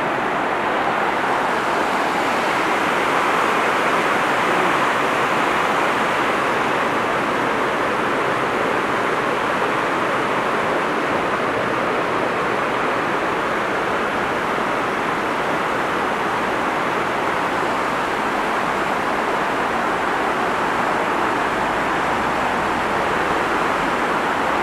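Steady rushing of river water, an even noise that holds without breaks or changes.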